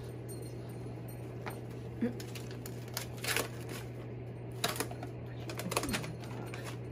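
Paper envelope being torn open by hand: a few short rips and crinkles of paper, heard over a low steady hum.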